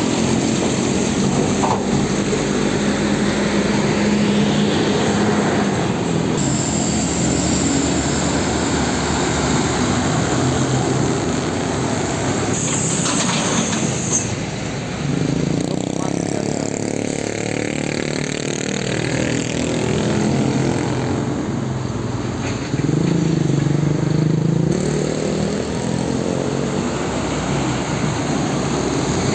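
Heavy diesel trucks running and driving past on a road, a steady engine hum with traffic and tyre noise; the engine note changes a couple of times as different trucks go by.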